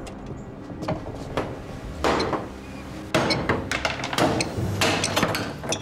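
Small hammer striking an iron bracket on a wooden door: a run of about a dozen uneven, sharp metallic knocks, each with a brief ring.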